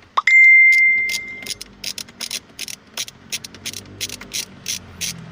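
A single loud electronic beep that sweeps quickly up and then holds one high pitch for about a second. Steady ticking runs under and after it, about four clicks a second.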